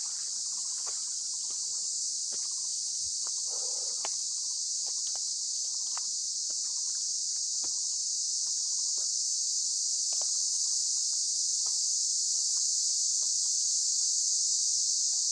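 A steady, high-pitched insect chorus drones without a break and grows slightly louder. Scattered faint crackles of footsteps on dry leaves and fern litter sound underneath it.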